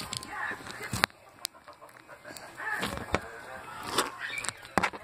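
Glossy slime being squeezed and kneaded by hand, with wet squelching and several sharp clicking pops as air pockets burst.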